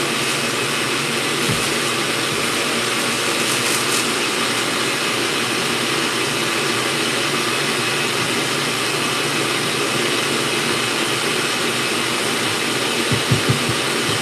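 Stand mixer running steadily, a little loud, whipping water and egg white protein powder into a foam that is starting to stiffen. A few quick knocks near the end.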